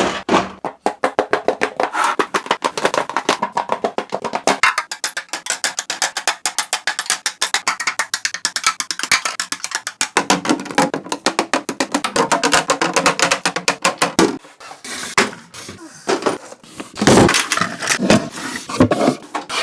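Rapid clicking and clacking of makeup items being set one after another into a storage organizer, several sharp clicks a second.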